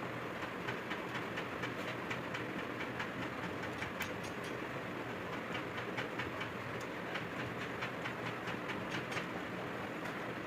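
Rapid, irregular light metallic clicks and taps from hand tools and parts being worked on during turbocharger disassembly, over a steady background noise.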